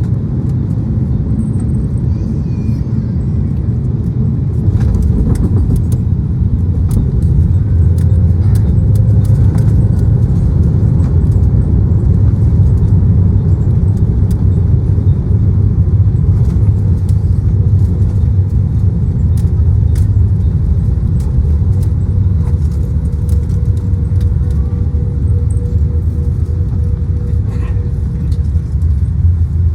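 Airplane landing: a loud, steady low rumble with scattered short rattles and clicks. It grows a little louder about five seconds in.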